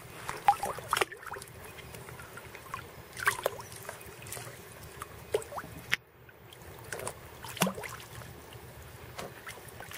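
Pool water lapping and sloshing at the waterline, with scattered small splashes and clicks.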